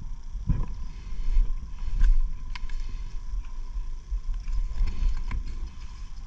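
Steady low rumble, as of wind or handling on a body-worn camera's microphone, with a few faint sharp clicks scattered through it.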